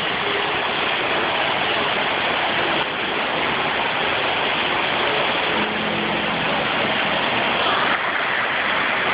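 Indoor waterfall: water falling and splashing with a steady rush.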